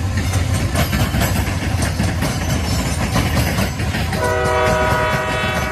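CSX manifest freight train passing close by: a loud, steady locomotive diesel rumble with wheels clacking over the rails. About four seconds in, the locomotive's horn sounds a multi-note chord and holds it to the end.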